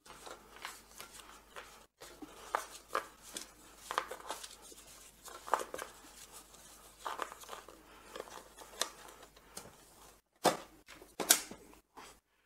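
A roll of paper labels rustling and scraping as it is handled and wound back into a direct-thermal label printer, with light taps along the way. Near the end come two sharper plastic knocks as the printer's lid is pushed shut.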